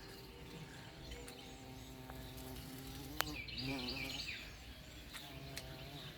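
Faint steady buzzing of a flying insect, with a few bird chirps about three and a half seconds in and a single sharp click just before them.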